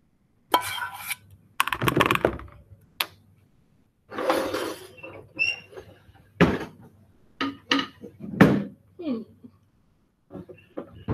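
Kitchen utensils clattering: a metal spoon scraping and clinking against a stainless steel mixing bowl and a metal baking pan, in a string of separate scrapes, clinks and knocks.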